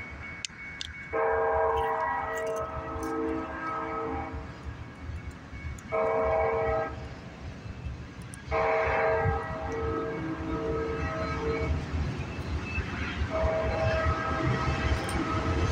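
Horn of Union Pacific EMD SD70AH-T4 locomotive 3079 sounding four blasts as the train approaches: long, short, long, long. Under it the rumble of the oncoming train grows louder near the end.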